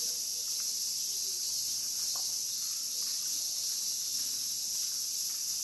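Steady, high-pitched insect chorus, an unbroken continuous drone.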